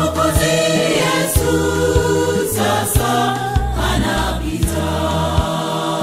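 Mixed gospel choir singing in Swahili over an instrumental backing with a bass line and a steady beat; the bass drops out near the end.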